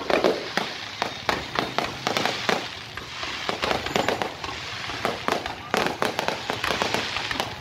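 Aerial fireworks display: shells bursting in a dense, irregular string of bangs and crackles with no real break.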